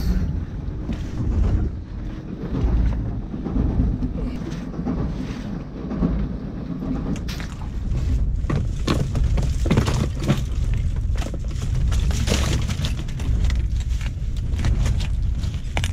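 Steady low rumble of a small fishing boat, with scattered clicks and rattles as the catch of mantis shrimp, shells and starfish is handled on the wet deck.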